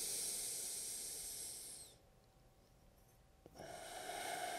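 Slow, deep breaths close to a clip-on microphone, during a back-rib breathing exercise. One long, airy breath fades out about two seconds in, and after a short silence another slow breath begins about three and a half seconds in.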